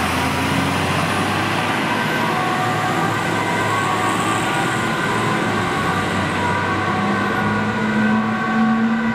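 Fire engine's two-tone German emergency siren (Martinhorn) sounding as the truck drives off, over the low hum of its diesel engine near the start.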